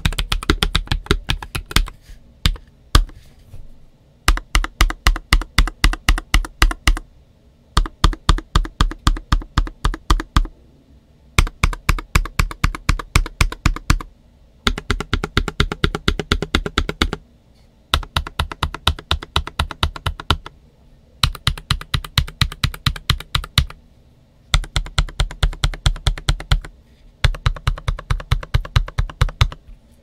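Typing on a NuPhy Air96 low-profile keyboard with Gateron x NuPhy Wisteria linear switches and nSA ABS shine-through keycaps: fast runs of keystrokes, about eight to ten a second, in stretches of roughly three seconds with short pauses between them.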